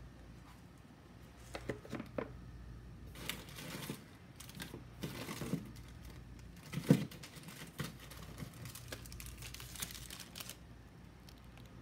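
Plastic food wrappers and pouches rustling and crinkling as packaged diet meals and snack bars are handled and shuffled on a table, in uneven short bursts. One sharp knock about seven seconds in, as of a packet or cup set down, is the loudest sound.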